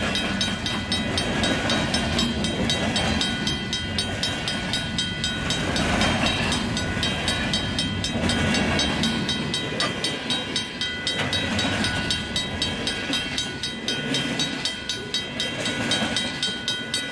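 Freight train cars rolling past, their wheels clicking over the rail joints in a fast, even rhythm, with a steady high ringing tone from the wheels and rails underneath.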